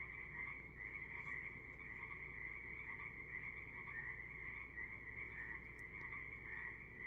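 A chorus of many frogs calling together in a steady, unbroken, fairly faint din.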